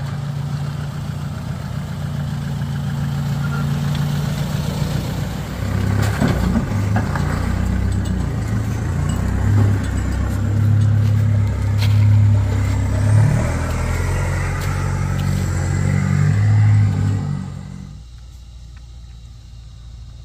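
Toyota Hilux 4WD engine working under load on a steep, rutted climb, the revs rising and falling with the throttle, with a few sharp knocks along the way. Near the end it gives way to a quieter, steady low engine hum.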